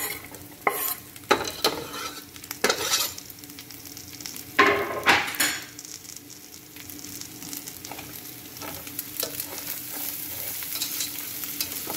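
Diced red onion scraped off a wooden cutting board into a hot pan of rice, dried fruit and nuts frying in oil, with several sharp scrapes and knocks in the first half. Then a metal slotted spatula stirs and scrapes through the mixture as it sizzles steadily.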